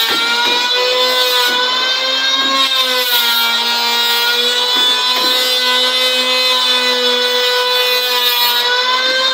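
Electric hand planer shaving a timber board. Its motor whine sags in pitch as the blades bite into the wood about three seconds in, and climbs again near the end as it comes off the cut.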